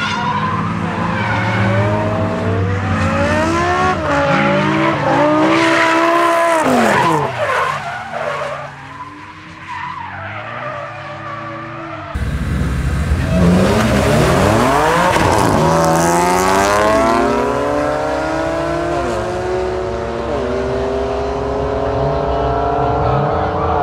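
BMW 1M Coupé with a swapped-in S85 V10 revving up and down hard while drifting, easing off briefly about a third of the way in, with tyres skidding. About halfway through, a second car's engine takes over, accelerating hard with wheelspin, its revs climbing and dropping back a couple of times as it shifts up.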